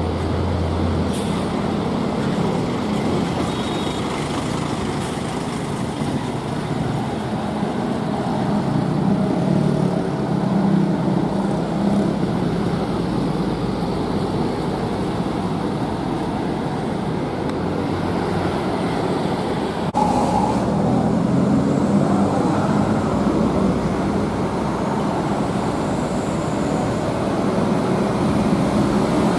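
Intercity bus diesel engines running steadily amid traffic noise. A short sharp click comes about two-thirds of the way through.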